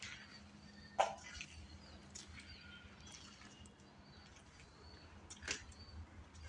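A few irregular footsteps crunching on debris, the loudest about a second in and near the end, with faint, sparse bird chirps in the background.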